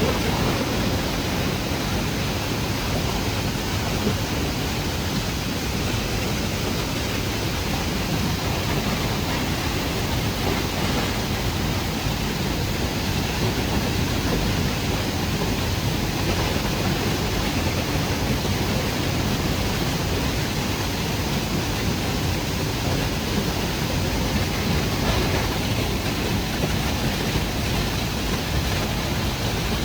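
Waterfall, a steady rushing of falling water.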